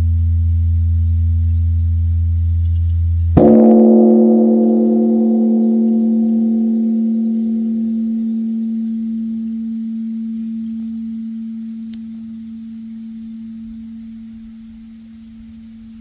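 Large bronze Korean temple bell (beomjong) struck once about three seconds in, over the low hum still sounding from an earlier stroke. It rings on with a deep hum that fades slowly over the following seconds.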